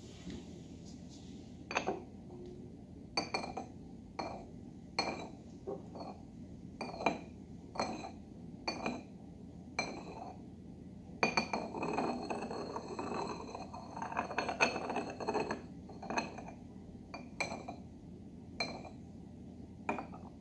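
Ceramic gaiwan lid and glass teaware clinking, a dozen or more sharp, ringing clinks spaced about a second apart. In the middle there is a denser few seconds of rapid rattling and ringing.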